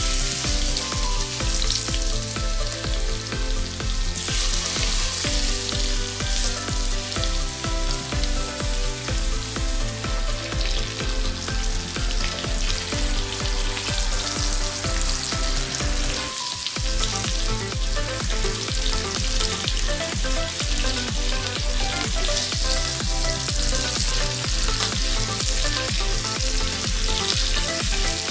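Beef steaks sizzling in butter in a frying pan. Electronic background music with a steady bass beat plays over it, and the music drops out briefly about halfway through.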